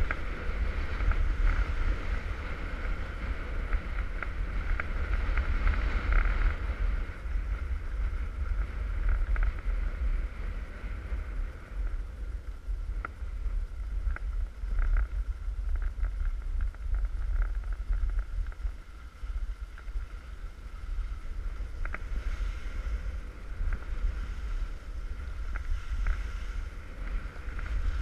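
Wind buffeting a GoPro action camera's microphone on a downhill ski run, a steady low rumble, with the hiss and scrape of skis on packed piste snow, stronger in the first few seconds and again near the end.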